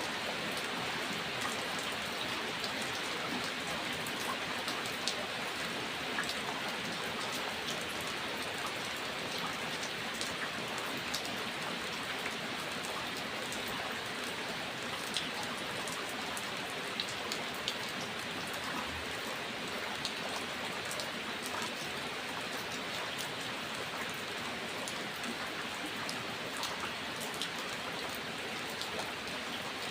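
Steady rain falling and pattering on a surface, with individual drops ticking sharply here and there over an even hiss.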